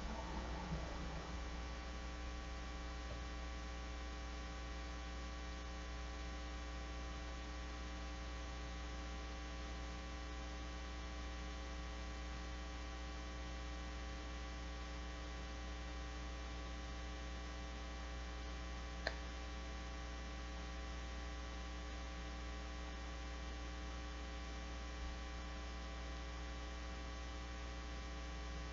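Steady electrical mains hum with a stack of even overtones, unchanging throughout. One short click about two-thirds of the way through.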